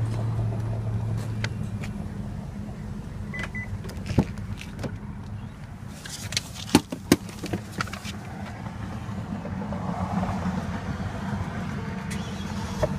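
Hyundai Equus 5.0-litre V8 idling with a steady low hum, broken by several sharp knocks and clicks around the middle and a brief high beep about three and a half seconds in.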